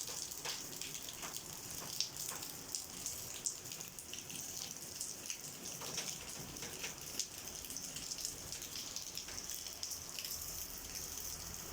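Steady rain falling, with many irregular drops ticking on a nearby surface.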